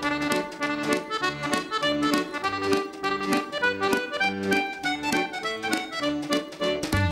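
Lively accordion-led theme tune with a steady beat and a bouncing bass that alternates between two notes.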